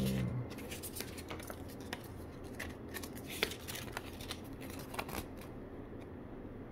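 Paper cards and a folded leaflet being handled and unfolded: light rustling with scattered small clicks and taps.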